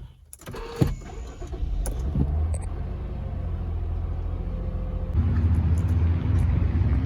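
Car driving, heard from inside the cabin: a steady low rumble of engine and road noise that grows louder about five seconds in. A couple of knocks sound in the first second.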